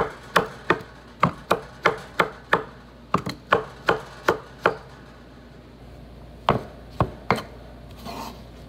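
Knife chopping mushrooms on a wooden cutting board: a steady run of sharp chops, about three a second, for nearly five seconds, then a pause and three more chops.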